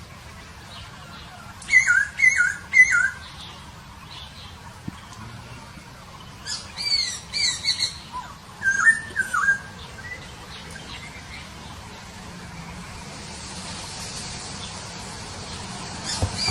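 Laughingthrush (poksay hongkong) calling: short groups of loud, clear whistled notes that slur downward, three quick notes about two seconds in and more clusters around the middle. A faint hiss builds up near the end.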